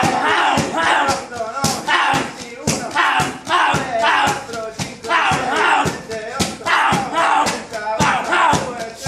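Fast roundhouse kicks slapping into a Muay Thai kick shield, about two to three a second without a break. Voices shout along with the kicks.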